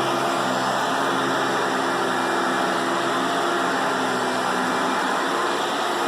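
Hoover twin chamber bagless vacuum cleaner running steadily: a constant rush of air with a low hum under it.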